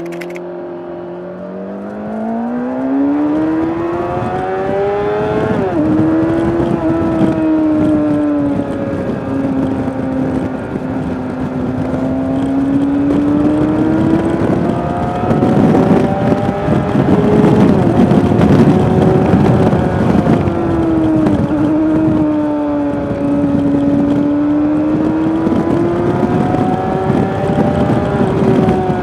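2003 Kawasaki ZX6R inline-four engine under way, heard from the rider's seat: its pitch climbs over the first few seconds, drops sharply about six seconds in, then rises and falls smoothly as the throttle is rolled on and off. A rushing noise builds up around the middle.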